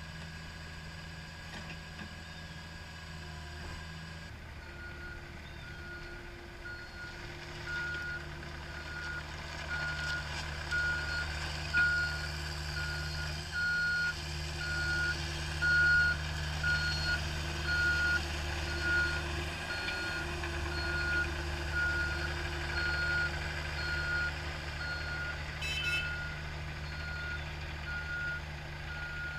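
CAT 305E CR mini excavator's diesel engine running steadily while its warning alarm beeps at an even pace, starting a few seconds in, as the machine is operated.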